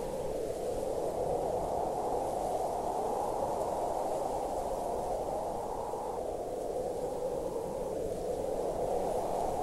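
Steady rushing noise, a narrow hiss-like band with nothing high in it, swelling and easing slowly: louder about a second in and again near the end.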